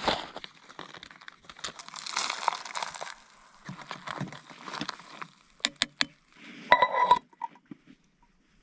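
A plastic zip-top bag crinkling as dried food is shaken out of it into a camp pot, then a few sharp metal clicks and a short ringing clink of metal on the metal cooking pot about seven seconds in.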